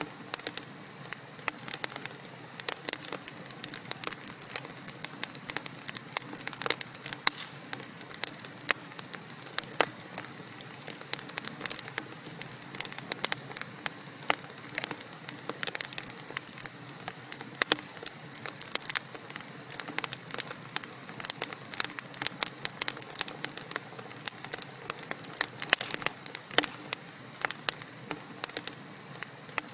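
Wood fire burning in a fireplace: a steady low hiss with frequent, irregular crackles and pops from the burning logs.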